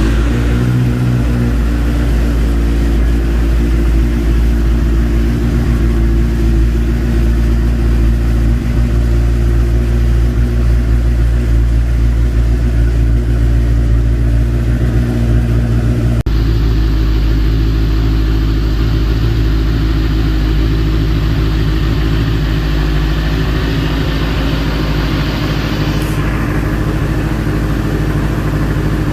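Benelli TNT 600i's inline-four engine idling steadily through its stock exhaust.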